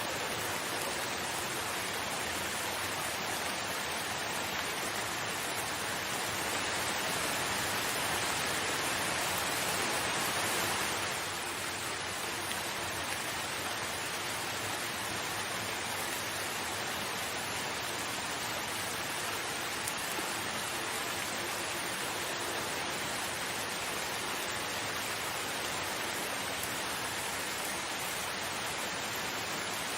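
Steady rain, an even hiss of falling water with no distinct drops standing out, swelling slightly and easing back about eleven seconds in.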